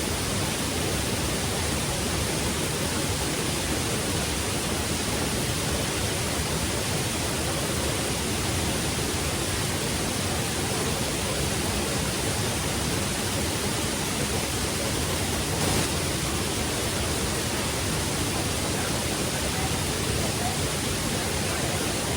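Steady rush of falling water from a waterfall: an even, unbroken wash of noise.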